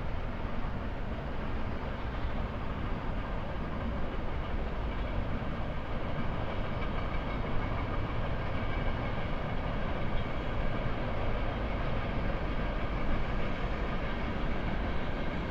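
Norfolk Southern freight train passing at speed, about 55 mph: a steady rumble of its wheels and cars on the rails.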